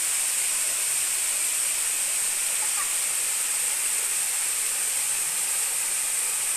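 Steady, loud, high-pitched hiss that holds even, with no pulses or rhythm.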